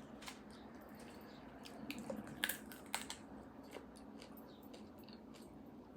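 Faint scattered clicks and scrapes from an air-fried marrow bone being picked clean of its last marrow, a few sharper clicks about halfway through.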